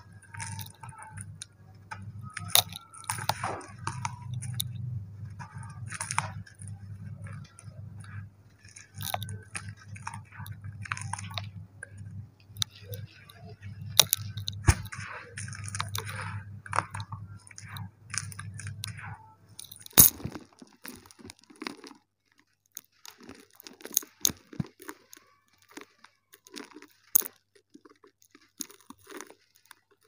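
Dry dirt-and-cement clumps crushed and crumbled by hand in a plastic basket: irregular crunching and crackling with sharp snaps as lumps break. A steady low hum runs underneath and stops about two-thirds of the way through, after which the crumbling is sparser.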